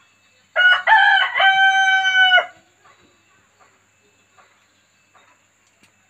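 A rooster crows once, about half a second in: a loud crow of about two seconds in a few joined syllables, ending on a long held note.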